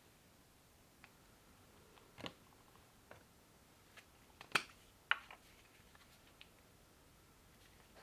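Scattered light clicks and knocks of small objects being handled, about eight in all, the two loudest close together about four and a half and five seconds in, over quiet room tone.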